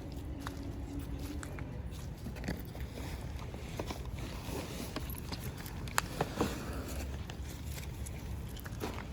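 Street dogs eating: scattered crunches and clicks of feeding, the sharpest about six seconds in, over a steady low rumble.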